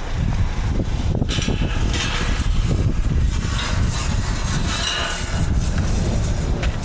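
Clattering and knocking of scrap being handled and squashed down, over a steady low rumble.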